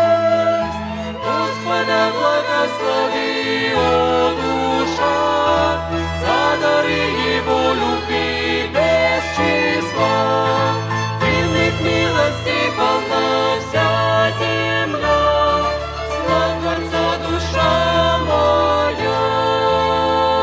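Violin orchestra playing a hymn tune, with bowed strings over a sustained bass line, and what may be voices singing along.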